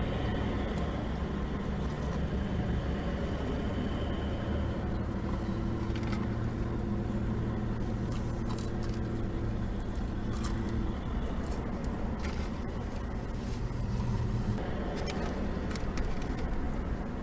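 Steady low rumble of a car heard from inside the cabin, with a few short light clicks along the way.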